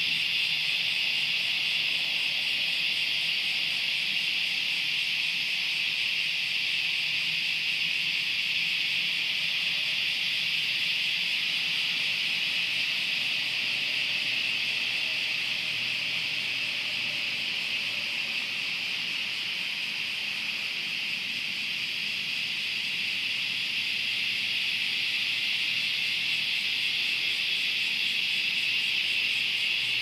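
Chorus of cicadas buzzing in the trees, a dense steady drone that eases slightly midway and builds again toward the end.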